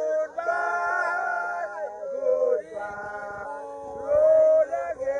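A man singing in long held notes, with a short break about two seconds in and the loudest note a little after four seconds in.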